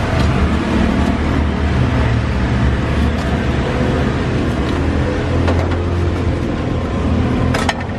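Steady, loud low rumble of motor vehicle engines running close by, with a single sharp knock near the end.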